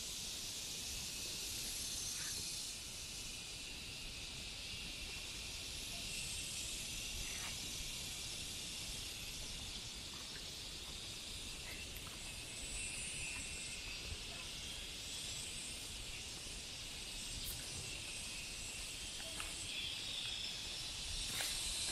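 Steady, high-pitched hiss of an outdoor insect chorus, with a few faint clicks.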